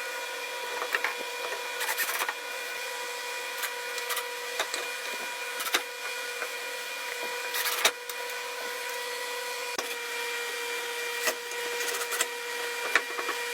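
A steady machine whine holding one pitch, with scattered clicks and knocks.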